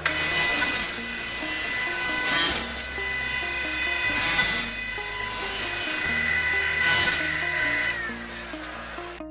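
Background music with a stepping bass line over a CNC stone bridge saw at work: a steady high whine with repeated bursts of hiss. The whine falls in pitch near the end, and the machine sound cuts off abruptly.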